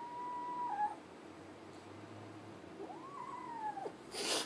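An orange kitten gives two long, drawn-out meows, then a short sharp hiss near the end, the loudest sound.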